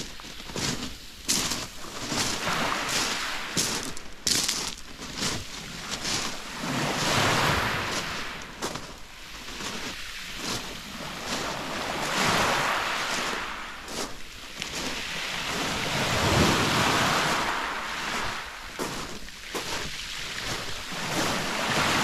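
Small Black Sea waves washing up onto a pebble beach, the wash swelling and falling every few seconds, with footsteps crunching on the pebbles, most clearly in the first few seconds, and some wind on the microphone.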